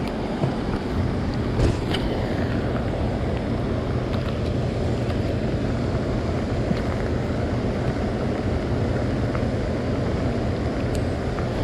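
Steady low hum of a boat's motor under a constant wash of rain and wind noise.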